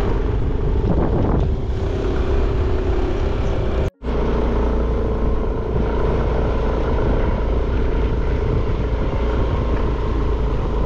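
Motor scooter being ridden, its engine and riding noise running steadily, with a brief break about four seconds in where the sound cuts out for a moment.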